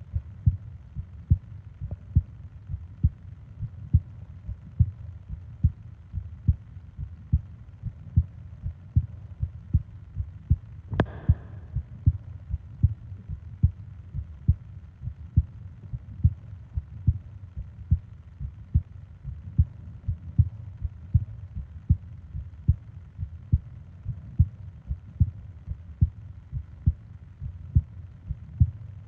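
A person's heartbeat recorded up close: steady, soft low thumps about one and a half a second. A brief soft noise sounds once about eleven seconds in.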